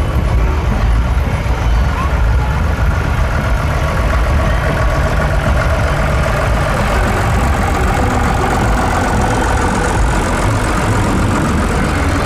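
A large vehicle's engine running at idle close by: a steady, loud, low rumble.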